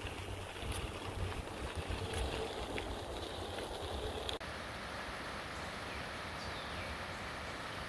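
Bicycle tyres rolling on a gravel towpath, an even crunching hiss with a few faint clicks and some wind on the microphone; about halfway through it changes suddenly to a smoother, steadier hiss.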